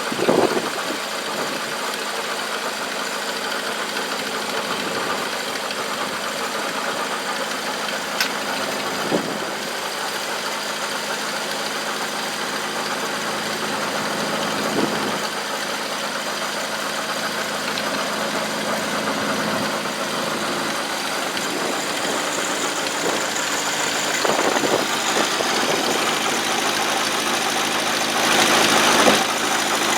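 International Harvester Cub four-cylinder flathead engine, the power unit of a McCormick-Deering No. 50-AW baler, running steadily at idle, with a few short sharp knocks and a brief louder patch near the end.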